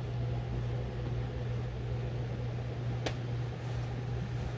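Ninja Foodi multicooker running while it preheats on bake/roast at 390 °F: a steady low hum from its fan and heater, the sound its owner calls the machine's farting. One sharp click comes about three seconds in.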